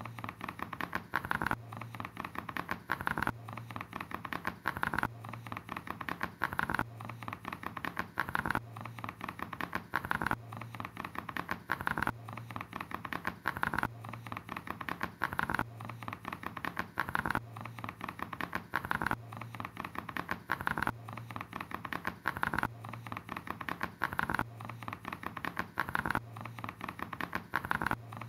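A looped sound of rapid, dense clicking over a low hum, repeating the same pattern about every 1.75 seconds, each cycle swelling to a louder peak.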